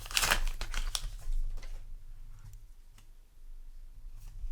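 Paper booster pack being torn open and crinkled in the hands, dense crackling for the first second or two, then a quieter stretch with a faint click or two.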